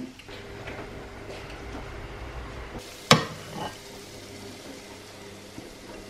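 Food sizzling steadily in a frying pan, with one sharp clink of a utensil about three seconds in.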